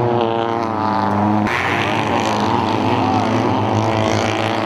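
Seat Ibiza 2.0 rallycross-style race car's four-cylinder engine running hard at steady high revs on a dirt track, with tyre and dirt noise over it. The sound jumps abruptly about a second and a half in, with more hiss above the engine after.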